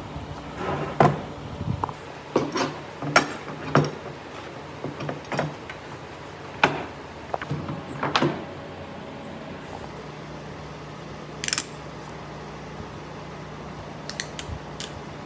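Workshop handling noises: irregular sharp knocks and clatters, bunched in the first half with a few more near the end, over a steady low hum.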